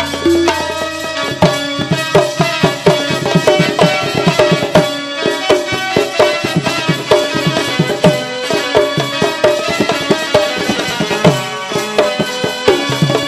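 Instrumental interlude of traditional Indian music: rapid hand-drum strokes, some with short pitch bends, over a sustained melodic instrument.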